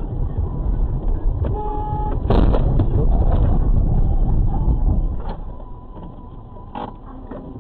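Steady road and engine rumble of a moving car heard through a dashcam's microphone. A car horn sounds briefly about one and a half seconds in, followed by a sudden knock, and the noise stays louder for a few seconds before easing off.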